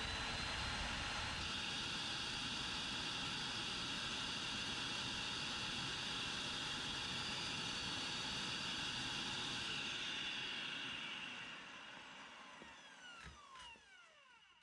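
Hoover Power Scrub Deluxe carpet cleaner's suction motor running with a steady rush of air and a high whine, driving the air-turbine brush heads, which spin on a freshly replaced bearing. About eleven seconds in it cuts off and winds down, its whine falling in pitch.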